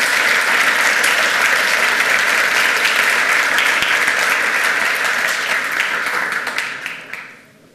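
Audience applauding in a lecture hall: dense, many-handed clapping that dies away over the last second or so.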